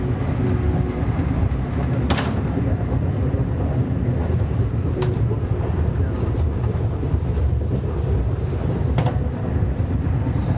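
Passenger train running along the track, heard from on board as a steady low rumble, with a few sharp clicks at about two, five and nine seconds in.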